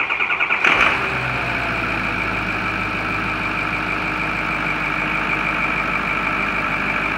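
Ford 6.0-litre Power Stroke V8 diesel turning over for a moment, then catching and settling into a steady idle with a high whine over the engine note.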